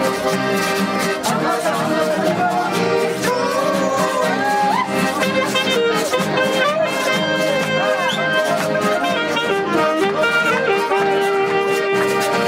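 Live dance music from a small band: button accordion holding and changing chords over strummed acoustic guitars, with a steady percussive beat.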